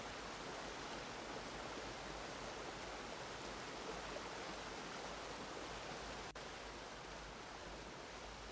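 Steady rush of running water, a waterfall-like ambience, with a momentary dropout about six seconds in.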